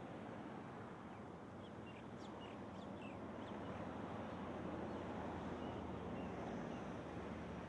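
Steady outdoor background noise with a few faint, high bird chirps, most of them between about one and a half and three and a half seconds in.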